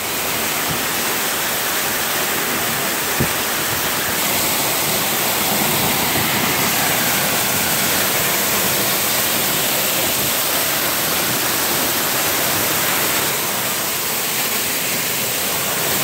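Waterfall pouring down a rock face, a loud steady rush of falling water heard close to the falls, with a brief tap about three seconds in.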